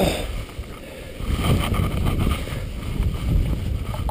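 Wind buffeting an action camera's microphone, a steady low rumble that eases briefly about a second in, with a few light clicks near the end.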